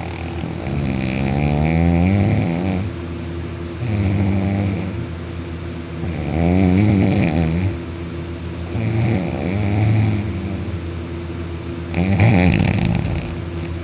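A sleeping man snoring very loudly, on his back with his mouth wide open: five long snores about every three seconds, each wavering in pitch, with a steady low hum underneath.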